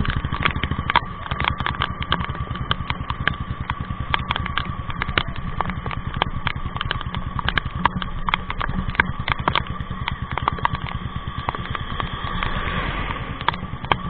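Motorcycle engines running steadily at riding speed with a fast, even low beat. Many sharp clicks and ticks are scattered over the engine sound.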